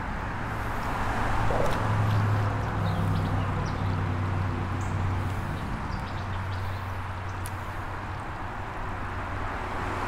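Low hum of a motor vehicle on a nearby highway, swelling about a second in and slowly fading as it passes, over a steady rush of flowing creek water. A few faint ticks.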